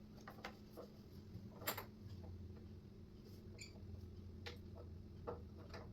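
Faint, scattered clicks and light taps of cabinet hardware and panel parts being handled while a hinge is lined up, over a low steady hum.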